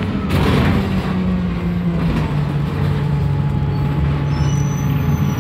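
Alexander Dennis Enviro200 bus's diesel engine running, heard from inside the saloon, its pitch stepping down about two seconds in. A faint high-pitched squeal comes in near the end.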